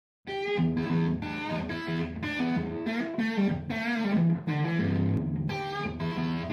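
Intro theme music on electric guitar, with chords struck in a steady rhythm. It starts about a quarter second in.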